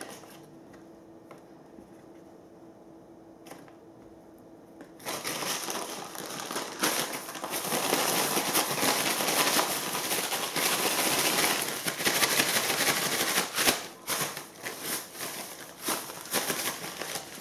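Brown paper bag with chopped okra inside crinkling and rustling as it is shaken and squeezed by hand, starting about five seconds in.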